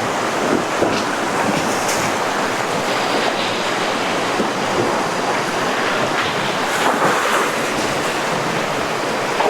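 Fast, shallow river water rushing steadily over rocks in a rapid.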